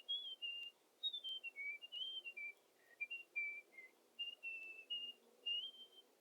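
A person whistling a simple tune: a string of short, clear, steady notes stepping up and down in pitch, with brief gaps between them.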